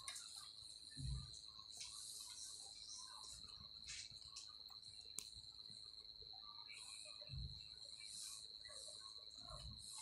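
Near silence with a faint, steady high-pitched trill that runs unbroken, and a few soft low thumps: one about a second in and two near the end.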